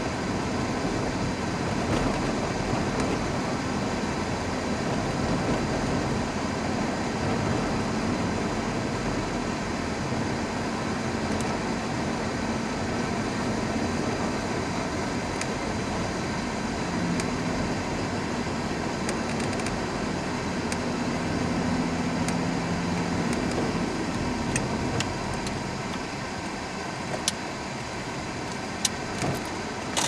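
A car's engine and tyre noise as heard from inside the cabin while driving along a narrow lane. The engine hum shifts in pitch about two-thirds of the way through, then the sound eases a little, with a few sharp clicks near the end.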